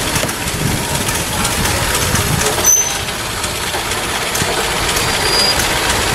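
Model T Ford railcar's four-cylinder petrol engine running as the railcar rolls past on the rails, a steady mechanical rumble and clatter. One brief high squeak comes near the middle.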